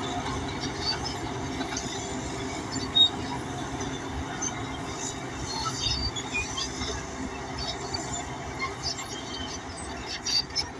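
Crawler bulldozer working: a steady diesel engine with the steel tracks clanking and squeaking in short, high-pitched bits, and one sharp knock about three seconds in.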